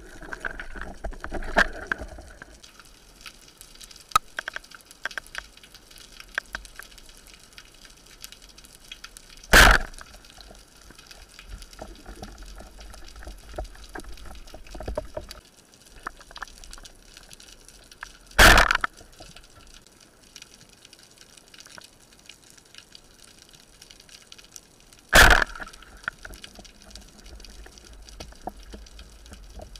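Underwater ambience picked up by a diving camera: a steady hiss full of scattered crackling clicks. It is broken three times, about 10, 18 and 25 seconds in, by a loud, short burst of noise.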